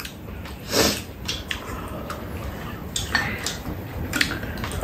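Tableware clinking while eating: a chopstick and a spoon tapping and scraping against ceramic bowls, a run of short clicks with the loudest a little under a second in.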